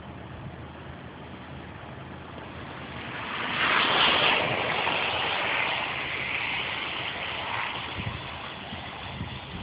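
A road vehicle passing through wet slush, its tyres hissing and spraying. The hiss swells about three seconds in, peaks soon after, then slowly fades.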